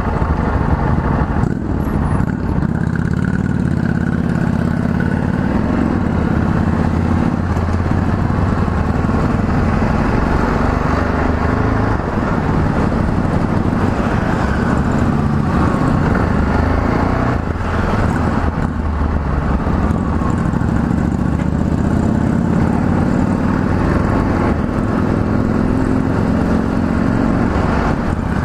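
Yamaha XT660Z Ténéré's single-cylinder engine running as the motorcycle rides at low speed, the engine note rising a few times as it accelerates.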